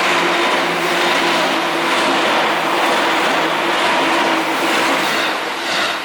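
A Seibu Ikebukuro Line train passing over the level crossing: a loud, steady rush of wheels on rail that falls away near the end.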